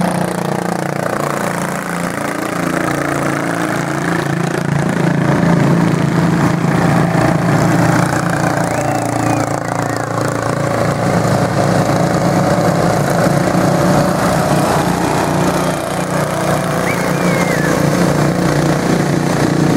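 Racing lawn mower engines running hard as the mowers lap a dirt track, a steady drone that dips briefly now and then.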